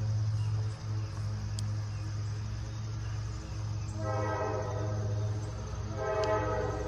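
Diesel locomotive running with a steady low drone, its multi-tone horn sounding two blasts: a longer one about four seconds in and a shorter one about six seconds in.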